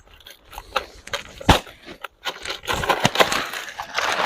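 Rustling and clattering of camping gear being handled, with one sharp knock about a second and a half in and denser rustling from about halfway on.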